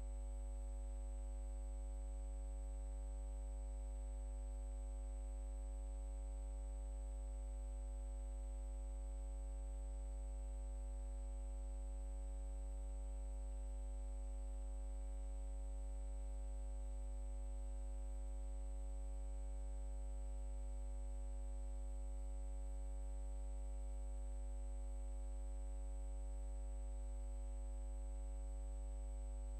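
A steady, unchanging low hum with a faint high whine above it, holding constant throughout with no other sound.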